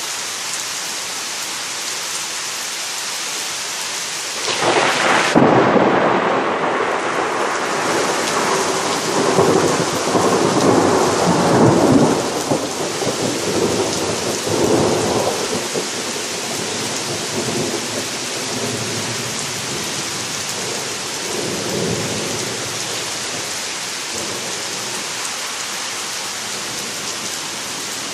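Heavy summer rain falling steadily. About four and a half seconds in, a loud thunder clap from a nearby lightning strike breaks in and rolls on as a rumble for about ten seconds before fading. A smaller rumble follows later, while the rain carries on.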